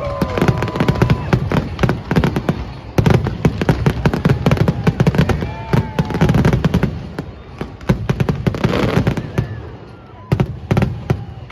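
Fireworks display going off: a dense run of sharp bangs and crackles in quick succession, easing briefly near the end before more bangs.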